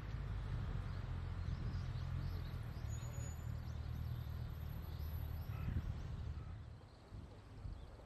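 A steady low rumble that eases off near the end, with faint, scattered high chirps from a flock of small birds.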